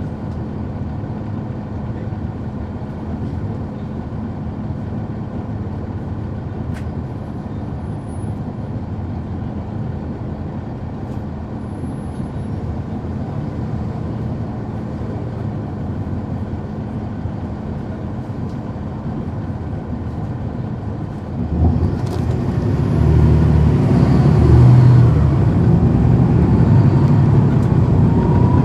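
Cummins ISL9 inline-six diesel of a NABI 40-SFW transit bus, heard from on board, idling steadily. About 21 seconds in it gets suddenly louder as the bus pulls away under power, with a whine rising in pitch near the end.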